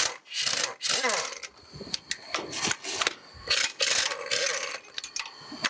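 Impact wrench run in a series of short bursts, loosening the nuts on a steam locomotive's steam chest cover.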